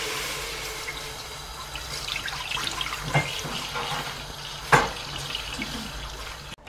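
Milk pouring in a steady stream from a carton into a stainless steel pot, splashing as the pot fills. A couple of sharp knocks come about three seconds in and again near five seconds, the second the loudest.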